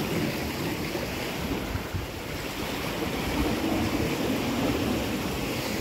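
Sea waves washing against a rocky shore, a steady rushing noise, with wind rumbling on the microphone.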